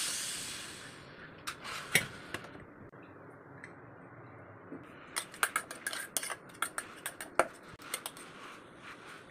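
Steam hissing out of a pressure cooker with its weight lifted by a spoon, fading away within the first second. A few metal clinks follow, then a steel spoon tapping and scraping quickly against the inside of the aluminium cooker pot as cooked rice and moong dal are mashed.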